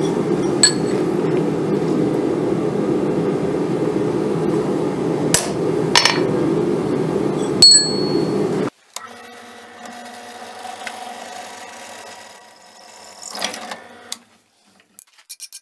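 A few sharp hammer blows on steel ringing off an anvil, four in about eight seconds, over a steady low roar. Then a quieter drill press motor humming steadily as it bores through the hook's flattened steel end, with a short rougher burst of cutting near the end before it stops.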